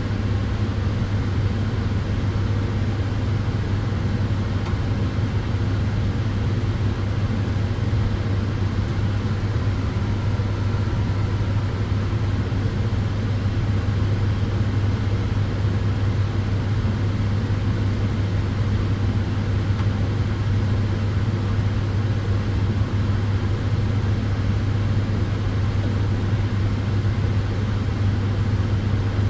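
Tanning bed (solarium sunbed) running: a strong, steady low hum over an even rushing noise, unchanging throughout.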